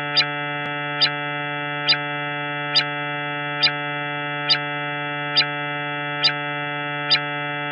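Synthesized electronic drone going "uuueee": one steady tone with a short, brighter pulse repeating about every 0.9 seconds.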